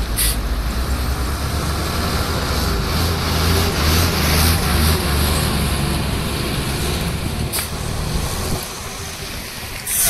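Heavy diesel trucks running on a highway climb. A low engine drone swells as a tanker truck passes close in the middle and fades near the end, with a couple of short hisses.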